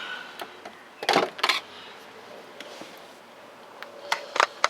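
Black rubber grommets being prised out of the inner door panel of a VW Golf Mk4: sharp clicks and knocks in two short clusters, about a second in and again near the end.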